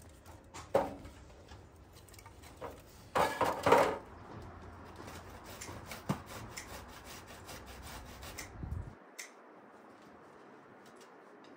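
Dry firewood sticks knocking and scraping against one another and the metal pan of a small charcoal grill as they are laid in. There is a sharp knock about a second in and a louder clatter of several knocks and scrapes about three seconds in, then fainter light ticks.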